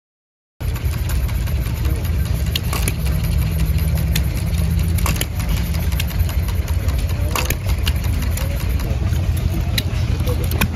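Small stationary gas engine running steadily, with a few sharp clicks over it. The sound cuts in abruptly about half a second in.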